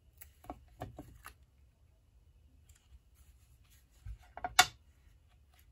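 Light clicks and taps of paper pieces being handled on a craft mat, then a few knocks about four seconds in ending in one sharp knock as a stamping block is set down on the card to hold the glued pieces in place.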